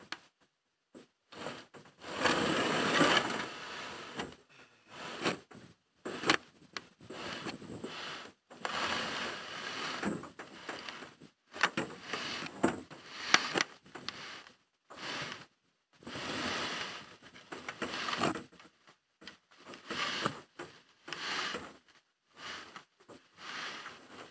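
Small boat's hull scraping and grinding over the ground in a series of irregular shoves, each lasting a second or two with short pauses between, as it is pushed into the water.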